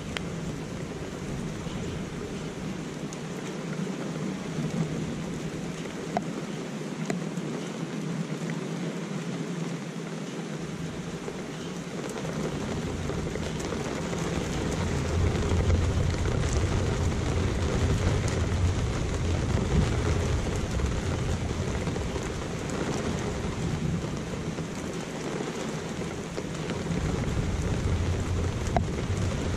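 Steady rain falling, with a long, low roll of thunder building up about halfway through.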